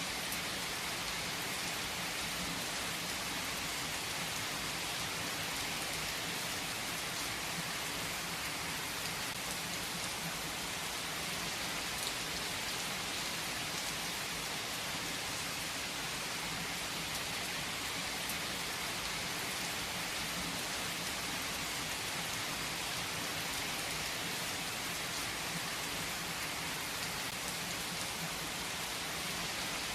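Steady rain falling, an even hiss that holds at one level without let-up.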